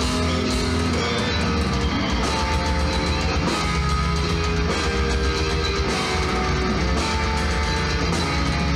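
Heavy metal band playing live: electric guitar over bass and drums on a Yamaha drum kit, recorded through a Hi8 camcorder's microphone.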